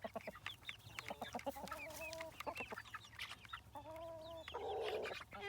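Chicks peeping over and over in short, high, falling chirps, mixed with adult hens clucking. There are two longer, lower hen calls, about a second in and again about four seconds in.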